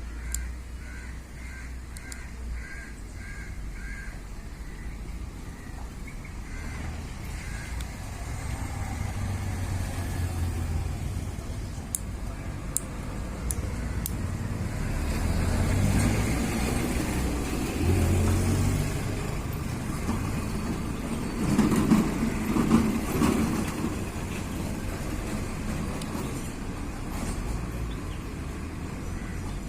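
Road vehicle noise. A regular electronic beeping, about two beeps a second, fades over the first few seconds, then a low engine rumble swells and eases off again.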